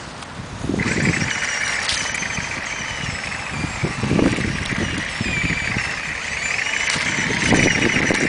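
Radio-controlled airsoft model tank running, with a steady high whine that cuts out briefly near the start and picks up again about a second in.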